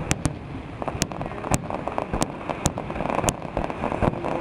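Fireworks display: about seven sharp bangs of bursting aerial shells, roughly every half second, over a dense continuous crackle of crackling stars.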